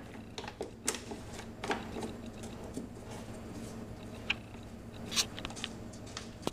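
Hard plastic air box lid of a Honda ATC 125M three-wheeler being handled and fitted back over the air filter, with scattered small clicks and knocks of plastic against plastic.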